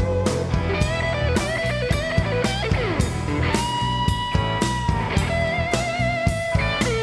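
Rock band playing live with no vocals: a lead line of held, wavering notes, tagged as electric guitar, with a falling slide about three seconds in, over bass and a steady drum beat.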